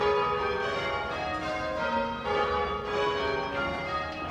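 Church tower bells rung full-circle from ropes, change-ringing style, ringing rounds: strike after strike at different pitches, each tone ringing on under the next.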